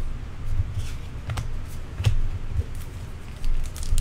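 Trading cards being handled: a few light clicks and taps as cards are flicked and set down, with a louder rustle near the end.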